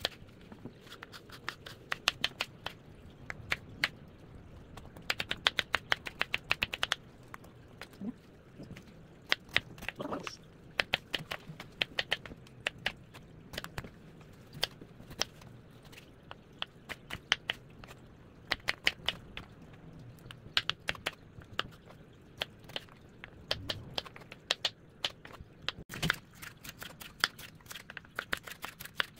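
Kitchen knife chopping vegetables on a cutting board: a long series of sharp taps, some in quick runs of several a second, with short pauses between.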